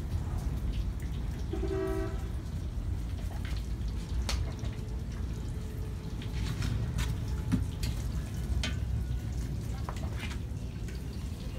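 Spice paste frying in oil in a large aluminium pot over a wood fire, with scattered pops and crackles over a steady low rumble. A short pitched call is heard about two seconds in.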